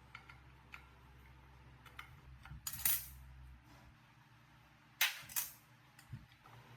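Metal parts and tools handled on a workbench: light metallic clinks, with two louder short scraping bursts, one about three seconds in and a double one about five seconds in.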